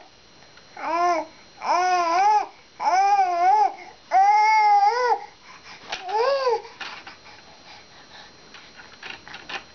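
A baby squealing: five high-pitched calls that rise and fall in pitch in the first seven seconds, then only faint small sounds.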